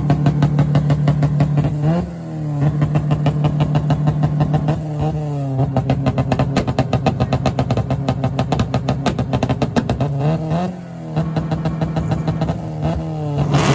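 Honda Civic hatchback's engine held on the rev limiter, its exhaust stuttering rapidly at one high pitch, as on a two-step. Three times the revs briefly drop and climb straight back to the limiter.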